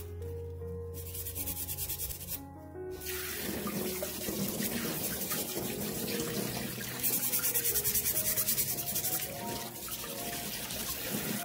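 A stiff plastic scrub brush rubbing over abalone shells in quick, even strokes. From about three seconds in, a tap runs steadily onto the abalone in a stainless steel sink, with another spell of rapid brushing under the stream partway through.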